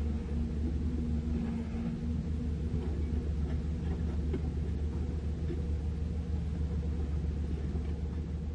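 Komatsu PC200 excavator's diesel engine running, a steady low rumble.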